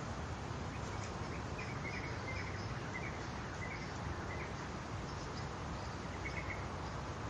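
Outdoor ambience at a fishing pond: a steady low background rumble, with faint short bird chirps repeating about twice a second for a few seconds and once more near the end.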